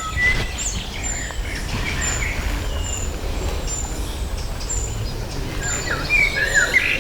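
Small songbirds singing: a thin high note repeats about twice a second, with a burst of quick chirps and whistles near the end, over a steady low rumble.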